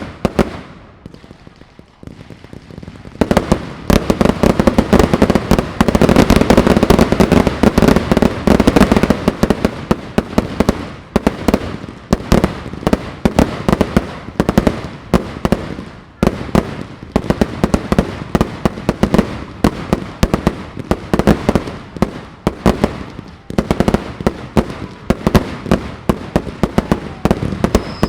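Fireworks display: a single bang, then from about three seconds in a dense barrage of rapid bangs and crackling reports, heaviest in the first few seconds of the barrage and carrying on thickly throughout.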